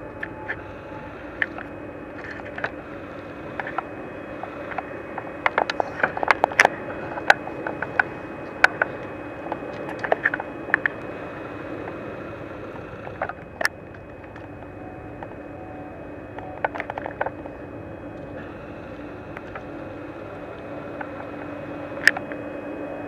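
Peppercorn A1 Pacific steam locomotive 60163 Tornado simmering: a steady hiss and hum of a locomotive standing in steam. Scattered sharp clicks and knocks come through it, thickest from about five to eleven seconds in.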